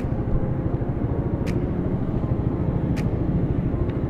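Suzuki Raider underbone motorcycle's engine running steadily, a low rumble close by. A sharp faint tick comes twice, about a second and a half apart.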